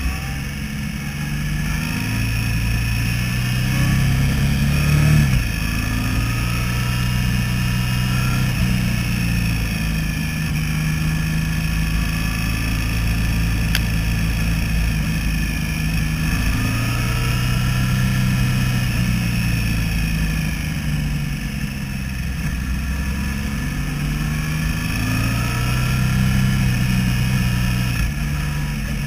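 Motorcycle engine pulling uphill, its pitch climbing through each gear and dropping back at the shifts, over a steady rush of riding noise.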